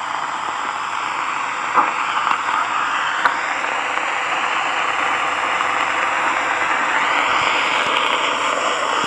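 A steady hiss with no tone or rhythm, growing a little louder about three seconds in and again near the end, with a couple of faint clicks.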